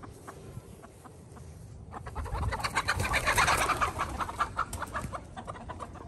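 Backyard chickens clucking, breaking about two seconds in into a loud flurry of rapid alarm cackling as they scatter from a stalking cat, then easing off.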